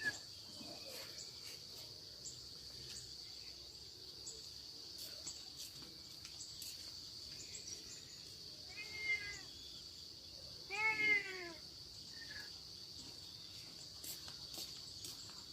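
A cat meowing twice, about nine and eleven seconds in, the second louder, each call rising then falling in pitch. Under it runs a steady high-pitched drone.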